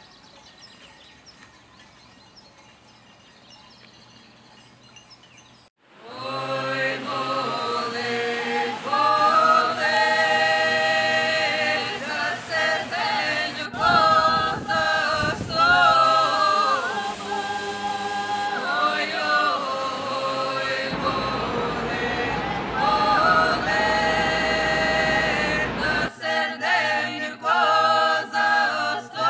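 Faint outdoor ambience, then, about six seconds in, a cappella choir singing, several voices together, as the soundtrack music.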